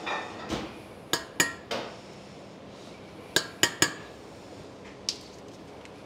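Metal spoon clinking and tapping against a stainless steel pan while spinach is spooned in: a scatter of sharp, ringing clinks, with three in quick succession about three and a half seconds in.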